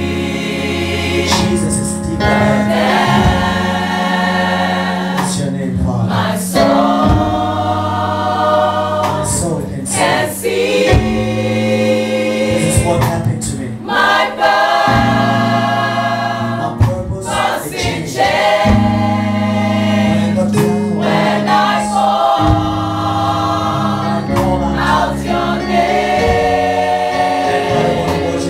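Mixed choir of men and women singing a worship song into microphones, over low notes held for a few seconds at a time that change in steps.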